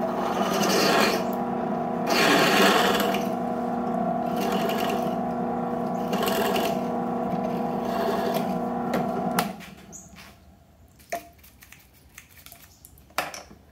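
Benchtop drill press running while a #1 bit is fed into a small split shaft coupling, the cutting coming in short bursts about every two seconds over a steady motor hum. The press stops about nine seconds in, followed by a few light clicks and knocks of the vise and tools being handled.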